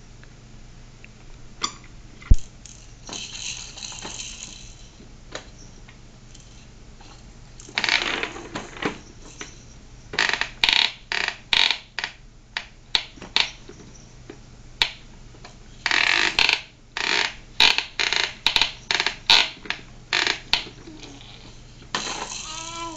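A baby banging and slapping the plastic toy tray of a baby walker, rattling its toys: sharp plastic clacks and rattles, sparse at first, then rapid runs of strikes through the second half.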